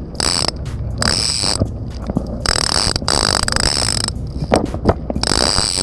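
Penn Squall lever drag reel buzzing in four surges, each under a second to over a second long, as a hooked fish pulls line off the spool against the drag.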